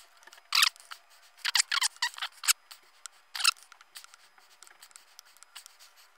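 Apple Pencil tip scratching and tapping on an iPad's glass screen in short strokes. A handful of quick scrapes come in the first three and a half seconds, then only faint light ticks.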